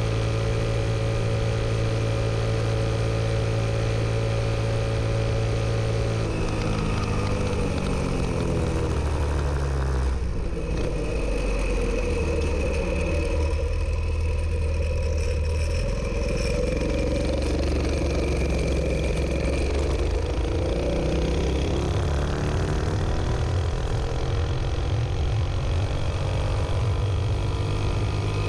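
Dirt Bug mini bike's 212cc Hemi single-cylinder engine, governor removed and fitted with a pipe, running at high revs under way. About six seconds in the engine note falls as the revs drop, stays lower for a while, then climbs again as it accelerates near the end.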